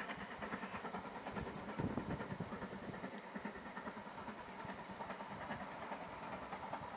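Steam locomotive, a BR(W) 5101 'Large Prairie' class 2-6-2 tank engine, working a passenger train past, its exhaust beats coming in a quick, even rhythm.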